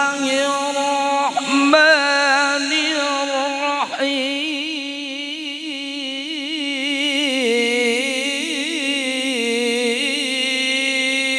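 A single voice reciting the Quran in the melodic tilawah style, drawing out long held notes with wavering, ornamented pitch and a few short breaths between phrases.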